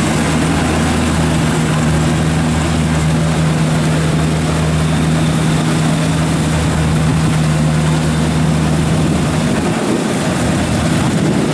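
Heavy farm-machinery diesel engine running steadily with a deep, even hum, which drops away about nine seconds in.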